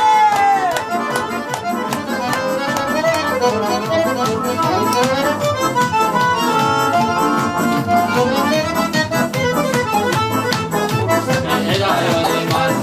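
Live piano accordion playing a folk tune together with an electronic keyboard, over a steady, even beat.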